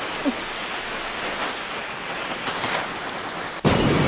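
Anime sound effects: a cannon's lit fuse hissing steadily, then the cannon firing with a sudden loud boom near the end that keeps rumbling low.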